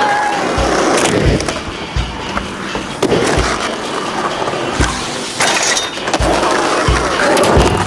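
Music with a steady thumping drum beat, about five beats every three seconds, over skateboard sounds: wheels rolling on concrete and the board clacking.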